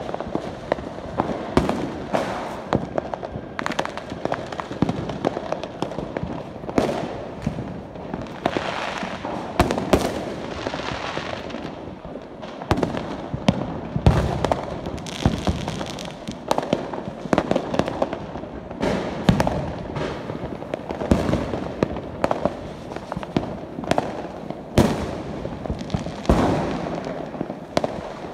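Fireworks and firecrackers going off all around: a steady stream of sharp bangs at irregular intervals, of varying loudness, with crackling haze between them.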